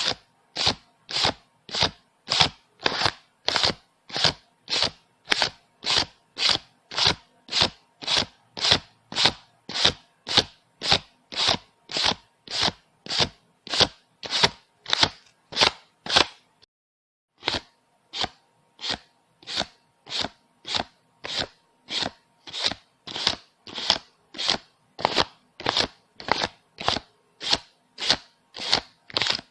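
Banknotes being counted one at a time, each bill giving a short rustle, at a steady pace of about two a second, with a pause of about a second just past halfway.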